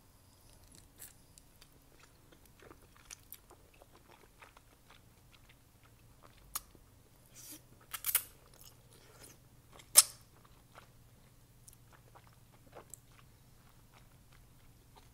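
Mouth sounds of eating thick, chewy wide glass noodles: soft wet chewing and small smacks, with a few sharper bursts about six and a half, eight and ten seconds in, the loudest near ten seconds.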